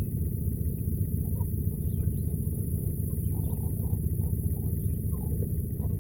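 Steady low rumble throughout, with faint short chirps scattered over it.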